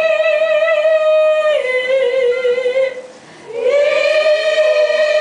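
Voices singing a Nias traditional chant in unison, the song that accompanies offering betel (sirih) to guests. Long held notes: the pitch steps down about a second and a half in, breaks for a breath near the middle, then slides up into a new held note.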